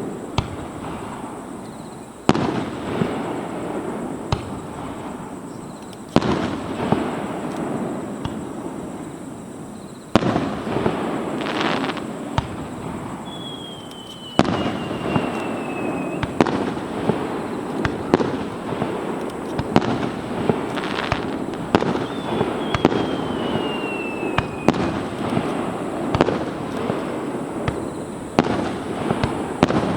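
Fireworks display: shells bursting in loud booms, spaced a few seconds apart at first and then coming thick and fast with crackling. Three times a high whistle sounds, each one falling in pitch over two or three seconds.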